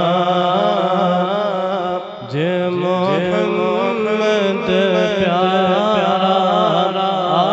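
A man singing a naat solo in long, ornamented phrases, his held notes wavering and bending, over a steady low tone. A short breath break comes about two seconds in, then a new phrase starts with a rising glide.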